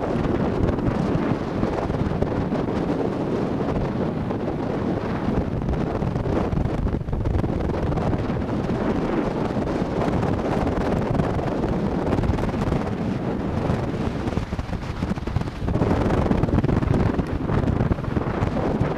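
Wind buffeting the microphone: a steady rough rushing that grows a little louder about three seconds before the end.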